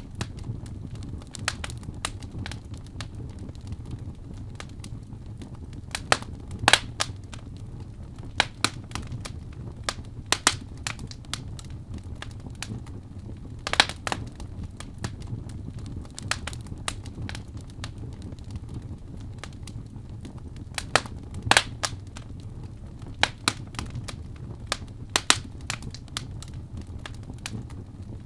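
Fire burning in a fireplace, crackling: sharp irregular pops, a few of them much louder, over a steady low rumble of the flames.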